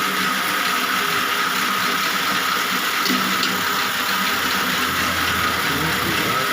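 Electric satay-skewer and slicer machine running steadily: an even motor hiss with a steady whine.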